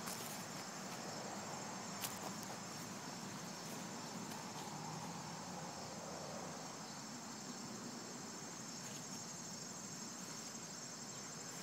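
A steady chorus of insects chirring over a soft, even outdoor hiss, with a single short click about two seconds in.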